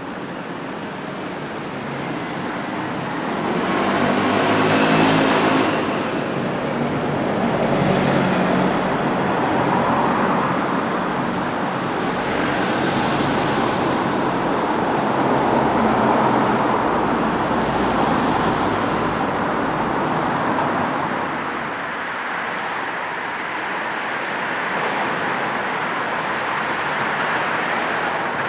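Road traffic: a steady wash of tyre and engine noise with several cars passing close one after another, the loudest about five seconds in and again about thirteen seconds in.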